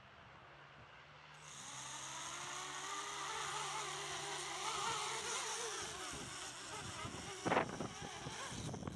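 Eachine Falcon 180 quadcopter's motors and propellers spinning up about a second in and whining, the pitch wavering up and down with the throttle. Near the end there is a sharp thump, and the motors cut off just after it.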